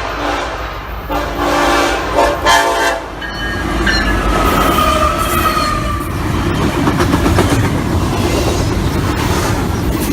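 Diesel freight train on the Norfolk Southern line: the locomotive's horn sounds for the first three seconds or so. Then the train passes close by with a steady low rumble and wheels clacking over the rails.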